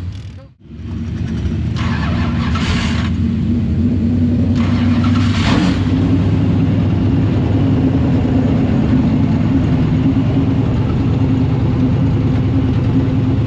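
Late model race car engine running loudly at a nearly steady pitch, with short bursts of hiss about two and five seconds in.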